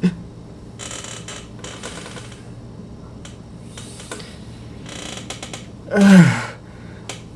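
Soft rustling and breathy handling noise with a few sharp clicks, then, about six seconds in, a man's short startled cry that slides down in pitch.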